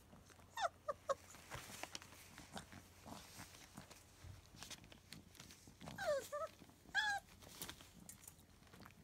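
German Shepherd puppies giving short, high, falling whimpers, a few a bit under a second in and again around six and seven seconds. Between them, puppy paws rustle and click on newspaper.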